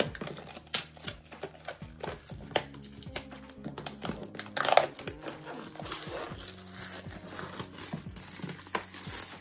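Clear plastic shrink wrap crinkling and crackling as it is peeled off a cardboard gift box, with a louder crackle about halfway through.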